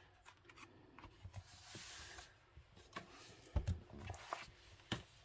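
Paperback coloring book handled on a wooden desk: a soft paper swish as the book is closed, then a few light knocks and taps as it is set down and straightened.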